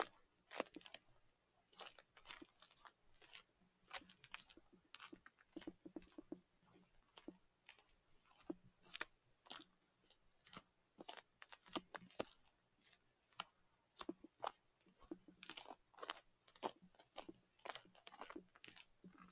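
Footsteps crunching on snow and ice: an uneven run of short, sharp crunches, a few each second, as the hiker climbs the trail.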